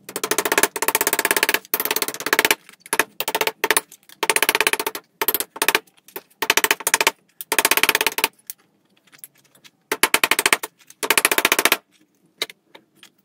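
Metal body hammer striking a 1 mm steel sheet held on a dolly clamped in a vise: planishing, in fast runs of many blows a second with short pauses, the steel ringing under the blows. The hammering stops near the end.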